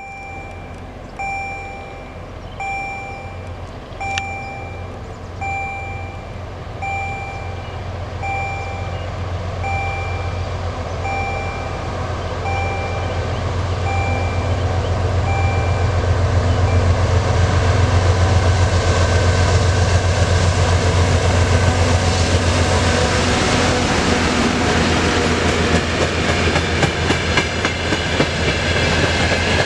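A level-crossing warning bell beeps in a steady rhythm about every second and a half and stops about halfway through. Under it, the diesel engines of a pair of ST40s locomotives hauling a train of open coal wagons approach with a deep drone that swells and peaks. The steel wheels of the wagons then clatter and rumble past over the rails.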